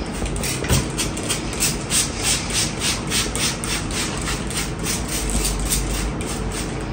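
Trigger spray bottle misting water onto hair, squeezed in quick repeated hissing squirts, about three a second.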